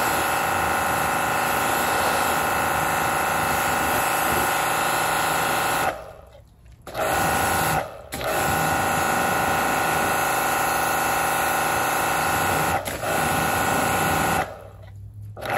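Pressure washer running, its motor and pump whining steadily over the hiss of the spray from the wand. It cuts out for about a second some six seconds in, starts again, and stops near the end.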